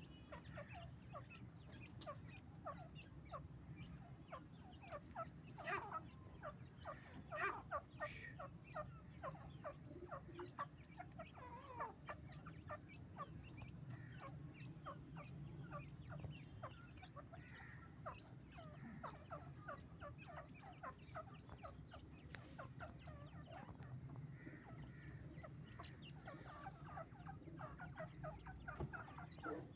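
Grey francolin hen and chicks calling quietly: a continual run of short, rapid peeps, a few of them louder about six to eight seconds in, over a low steady hum.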